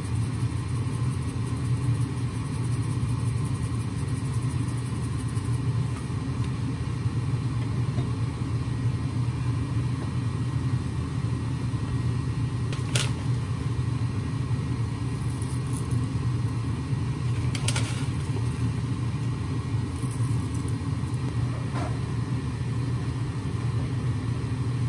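Steady low rumble of a moving road vehicle, with a few brief clicks around the middle.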